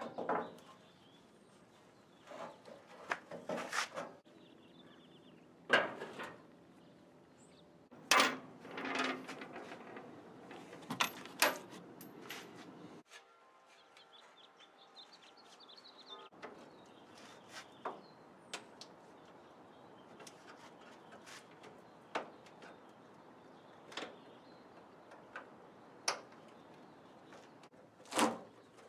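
Scattered knocks, taps and clunks of sheet-metal car body parts being handled, a few of them ringing briefly. The noise drops for a few seconds near the middle.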